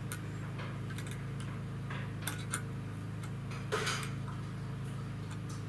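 Scattered metal clicks and taps of a screwdriver prying at the steel ratchet and hook of a ratchet strap, with a longer scraping rasp about four seconds in. A steady low hum runs underneath.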